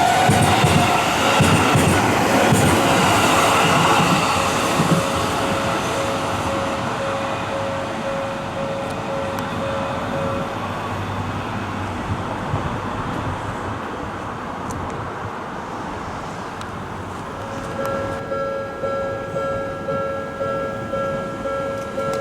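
Commuter train running over the rails through a level crossing, loud at first and fading over the first six seconds, while the crossing's warning bell rings in a steady pulsing pattern. The bell stops about ten seconds in and starts again about three-quarters of the way through, ringing at a higher pitch as well.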